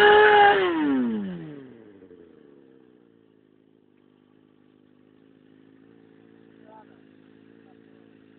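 Stunt motorcycle's engine held at high revs while the rear tyre smokes in a burnout. About half a second in the revs drop away in a long falling pitch, settling within a couple of seconds to a quiet, steady idle.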